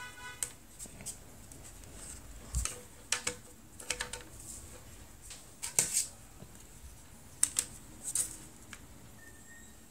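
Irregular clicks and light clatter of small hard keyboard-kit parts being handled and fitted, with a few sharper knocks.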